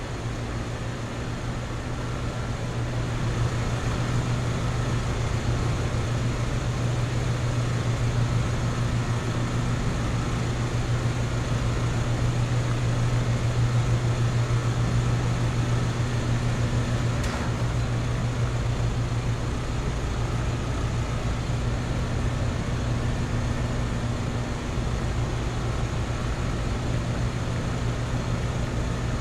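Two central air conditioner outdoor condensing units, a Trane XR series 3.5-ton and a Payne Performance, running steadily: a constant low hum with the rush of the condenser fans.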